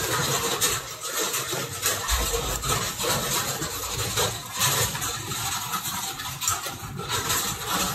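Charcoal stick scraping across drawing paper in quick, irregular shading strokes, with a low rumble underneath.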